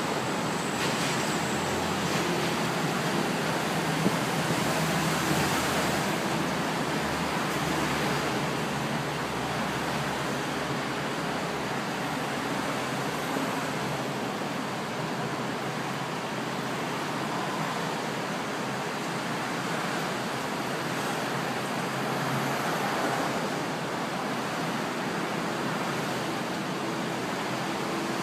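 Steady outdoor background hiss, mostly distant road traffic, with one short knock about four seconds in. No siren or nearby engine.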